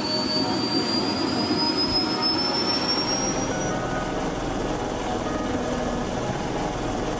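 Helicopter turbine engine running, with a high whine that rises slowly in pitch over the first few seconds as it spools up, over a steady rushing noise.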